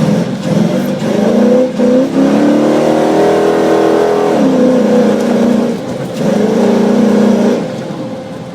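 Tomcat off-road 4x4's engine revving hard under load, heard on board. Its pitch climbs for a couple of seconds, drops sharply about four seconds in, then holds before falling away near the end.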